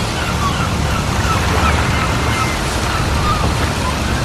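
Wind buffeting the microphone: a steady, loud, low rumbling rush. Faint, short chirps repeat above it.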